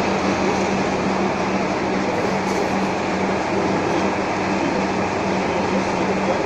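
Steady, loud running noise of machine-shop machinery, with a constant low hum underneath.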